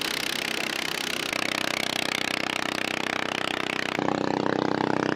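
A boat engine running steadily at a constant pitch. A hiss over it stops abruptly about four seconds in, and the engine is louder after that.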